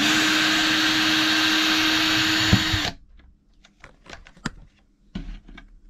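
Cordless drill-driver running steadily for about three seconds with a constant motor whine, backing a screw out of a wooden cabinet rail, then stopping abruptly. A few light clicks and taps follow.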